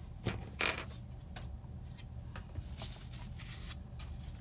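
Trading cards and foil booster-pack wrapper being handled: a string of short rustles and scrapes, the two loudest in the first second.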